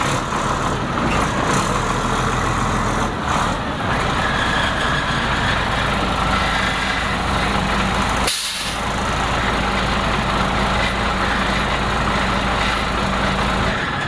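International 2554 dump truck's engine idling steadily, with a short dip in the sound about eight seconds in.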